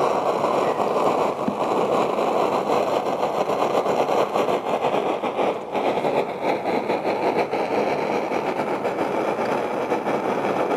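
Homemade copper coil jet alcohol stove burning hard under a pan of water: a steady, busy roar, a bit like a petrol or gas stove. Its maker wonders whether some of the roar comes from gas escaping where the copper pipe passes through the lid.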